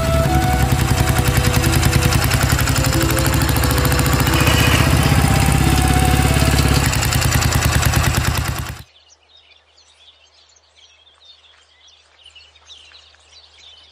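Motorcycle engine running loud and steady, then cut off abruptly about nine seconds in, leaving faint bird chirps over a low hum.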